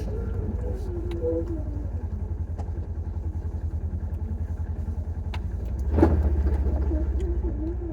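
Small vehicle's engine running while driving, with a rapid low pulsing and a tone that wavers up and down. A single thump about six seconds in is the loudest sound.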